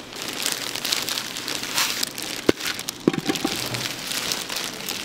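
Plastic-gloved hands mixing drained tuna flakes with a white seasoning powder in a stainless steel bowl: the gloves crinkle and the flakes rustle, with a sharp knock about two and a half seconds in and a few smaller clicks just after.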